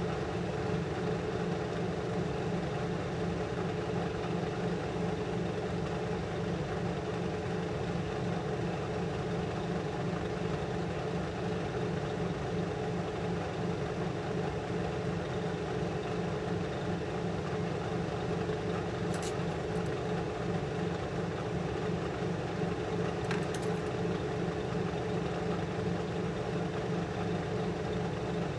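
Steady, even drone of a clean-room air blower, with two faint ticks a few seconds apart past the middle.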